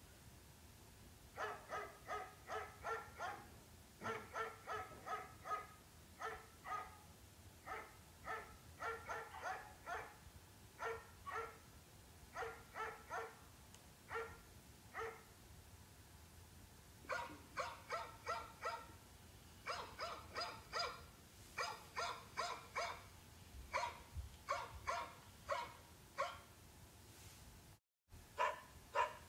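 A dog barking over and over in quick runs of short barks, about three a second, with brief pauses between runs. The sound cuts out completely for a moment near the end.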